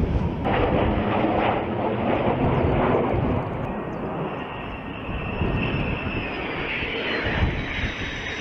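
Fighter jet engines. A Eurofighter Typhoon roars on its takeoff run, then an F-16 comes in low on approach with a steady jet rush and a high whine that drops slightly in pitch near the end.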